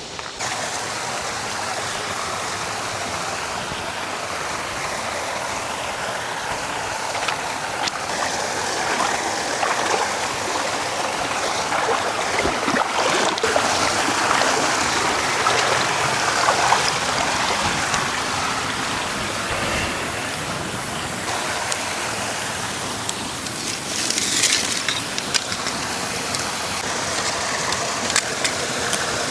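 Forest stream flowing steadily, a continuous rush of running water, with a brief sharper hiss about three-quarters of the way through.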